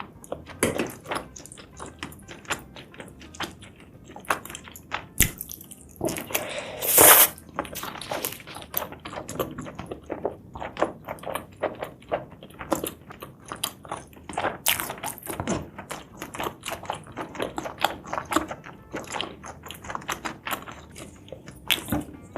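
Close-miked chewing of spicy seafood and mushrooms: a dense run of wet mouth clicks and smacks, with a louder, longer noisy burst about seven seconds in.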